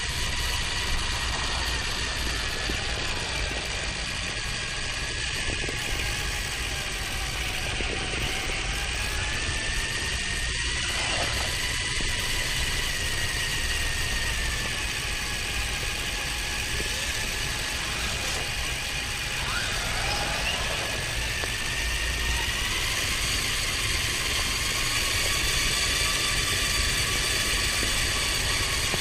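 Radio-controlled car's small electric motor and gears whining as it drives, the pitch drifting gently up and down with its speed, over a steady rumble.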